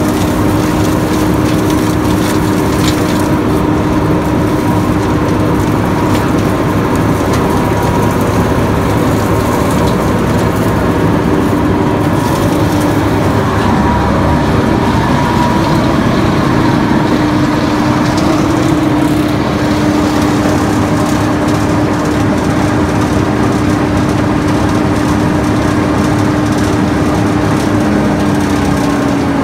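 2002 Bandit Beast 3680 horizontal grinder running, its diesel engine and grinding drum making a loud, steady machine noise with a constant droning hum.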